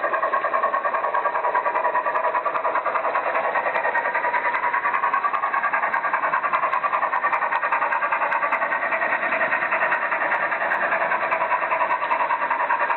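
Märklin model trains running: a steady electric-motor whir and wheel-on-rail noise with a fast, even pulsing and light scattered clicks from the track.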